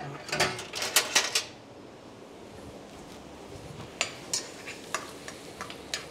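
Metal kitchen utensils clattering in the first second and a half. From about four seconds in, a metal utensil clicks and scrapes in quick succession against a stainless steel pan as butter, onion and garlic are stirred on an induction hob.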